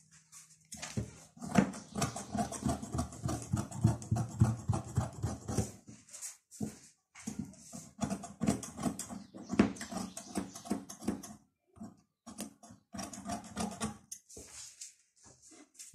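Scissors cutting through dress fabric laid on a table: quick runs of snipping with rustling cloth, broken by a few short pauses.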